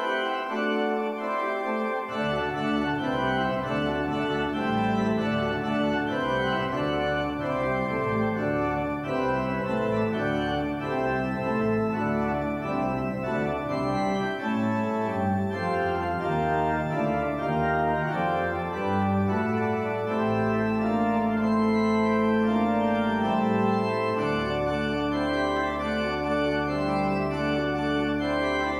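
Organ music playing full chords, with deep bass pedal notes coming in about two seconds in and long held chords near the end.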